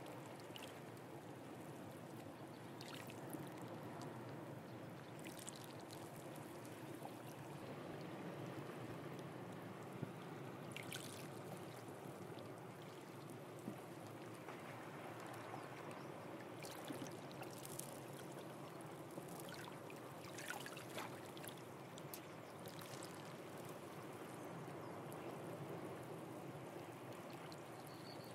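Faint, steady wash of seawater moving among shoreline rocks and tide pools, with a few brief high ticks now and then.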